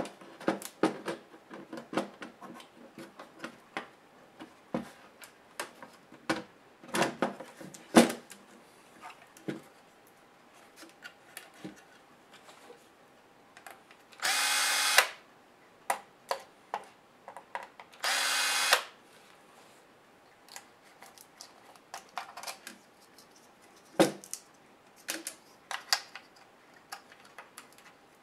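Cordless electric screwdriver whirring twice, each run under a second, backing out screws that hold a laptop motherboard. Between the runs come many sharp clicks and knocks as the plastic and metal laptop parts are handled, the loudest near 8 seconds in.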